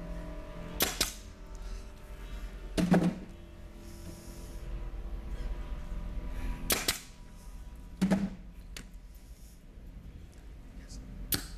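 Pneumatic nail guns fired empty three times, each trigger pull a sharp pop that shows the gun was not loaded. Each pop is followed a second or two later by a heavier thud as the gun is set down on the table.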